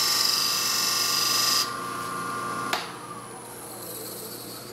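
Wood lathe running while a point tool takes a light cut on the spinning wooden spigot, a loud hissing cut that stops after about a second and a half. The motor's whine runs on; a click comes near the middle, and then its pitch falls steadily as the lathe winds down.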